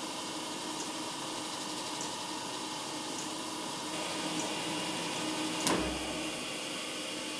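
TOS BUAJ 28 cylindrical grinder running: the spinning grinding wheel grinding a steel arbor under flood coolant, a steady machine hum and coolant splash with a faint tick about once a second. About four seconds in the hiss grows brighter, and a single sharp knock comes shortly before the end.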